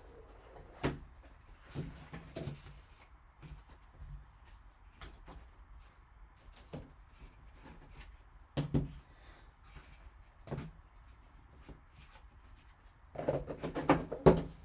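Cardboard trading-card box and its packaging being handled and opened by hand: scattered soft taps, knocks and rustles, with a single louder knock about a second in and another near the middle. A denser run of rustling and knocking comes near the end as the contents are lifted out.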